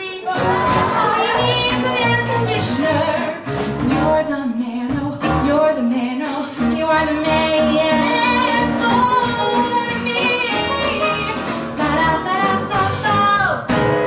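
Woman singing with a live band of piano, guitar, bass and drums, holding long notes as the song reaches its end.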